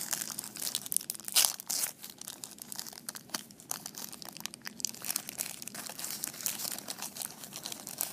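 Plastic wrapper of a 1990 Score football card pack being torn open and peeled off the cards: a steady run of sharp crinkles and crackles, loudest about a second and a half in.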